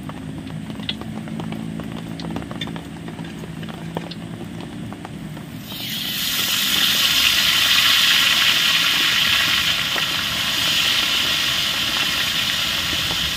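Seasoned fish put into hot cooking oil: after a few light clicks it breaks into a loud, steady frying sizzle about six seconds in.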